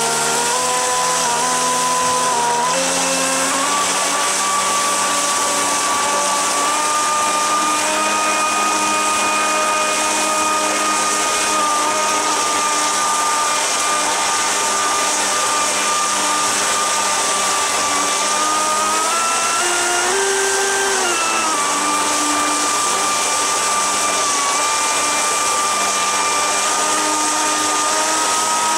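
Electric motor driving a jet-drive unit for an electric surfboard, running at about half throttle under water load: a steady whine over the rush of churning water from the jet outlet. The pitch steps up in the first few seconds, then briefly rises and falls back about twenty seconds in.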